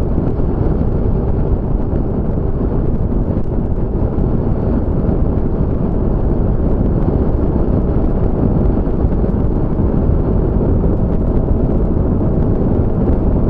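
Steady wind buffeting on the microphone over the continuous running of a 2021 Honda Forza MF15 scooter's engine at cruising speed.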